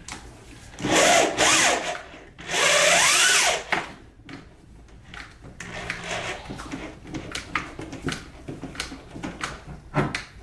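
Power drill run in two short bursts, its motor pitch rising and falling with each trigger pull, drilling a mounting hole in the car body. Lighter clicks and handling knocks follow.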